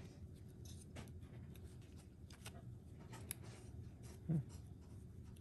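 Faint clicks and scrapes of small plastic parts being handled as a clear plastic LED cover is fitted onto a cordless jigsaw. A brief low vocal sound comes about four seconds in.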